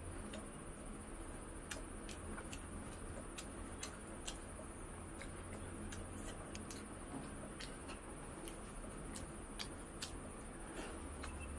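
A person chewing and eating, with irregular soft mouth clicks and smacks about once or twice a second over a faint steady background hiss.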